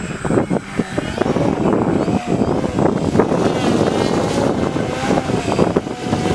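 Wind buffeting the microphone, with the whine of an electric RC aerobatic plane's Hacker brushless motor and 12x6 propeller heard from about two seconds in, its pitch wavering up and down with the throttle.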